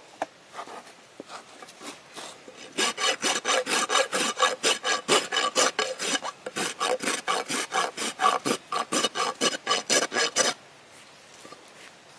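Hoof rasp filing a horse's hoof during a barefoot trim. A few light scrapes come first. About three seconds in, fast, even back-and-forth strokes begin, about five a second, and they stop suddenly near the end.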